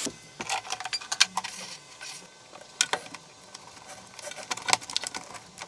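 Scattered light clicks, taps and small metallic rattles of hands handling a cable and its metal connector inside a plastic control-box enclosure.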